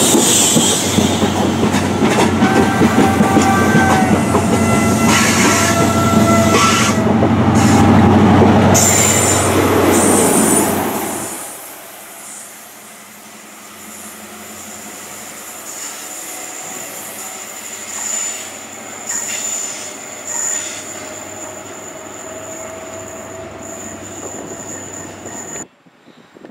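First Great Western High Speed Train (InterCity 125) running past along the platform: a loud diesel drone and wheel noise, with thin wheel squeals. About eleven seconds in, the sound falls away to a quieter, more distant train coming in, with faint squeals and a steady high whine, and it cuts off suddenly near the end.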